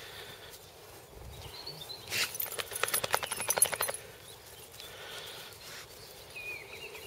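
A dog's collar and tags jingling in a quick rattling run for about two seconds, starting about two seconds in, as the Weimaraner moves or shakes. A few faint bird chirps come near the end.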